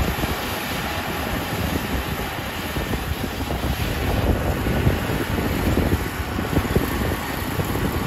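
Kubota ER460 rice combine harvester running steadily while cutting and threshing standing rice, a dense mechanical drone, with wind buffeting the microphone.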